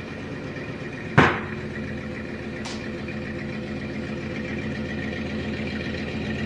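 1998 Chevrolet Silverado pickup's engine running as the truck creeps forward, with a steady high whine from its noisy power steering pump. A single sharp knock rings out about a second in, and a faint click follows a second and a half later.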